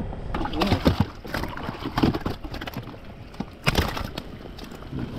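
Irregular knocks and slaps of barramundi on a stringer being lifted and handled in an inflatable fishing boat, with a few sharp hits about one, two and nearly four seconds in, the last the loudest.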